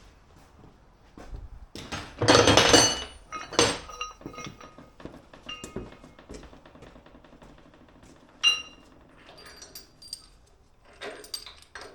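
Steel parts and hand tools clanking and clinking as they are handled and fitted, in scattered knocks with a ringing metallic tone. The loudest is a clatter of under a second about two seconds in, and there is another sharp clank about eight and a half seconds in.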